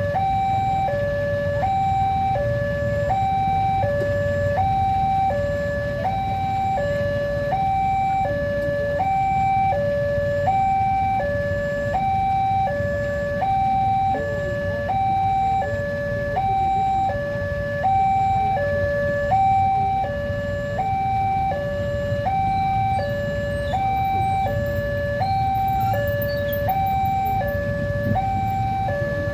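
Railway level-crossing warning alarm sounding a steady two-tone high-low pattern, each tone held about two-thirds of a second, over a low steady rumble.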